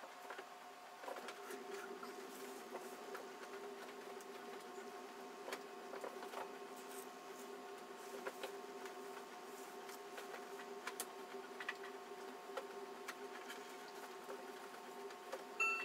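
Swivel knife cutting a design into damp tooling leather on a granite slab: faint scratchy scraping with scattered small clicks as the blade is drawn and turned, over a steady hum.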